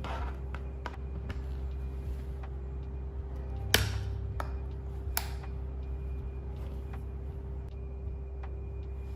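Steady low hum with a few scattered sharp taps or clicks. The loudest tap comes a little under four seconds in, and a second about a second later.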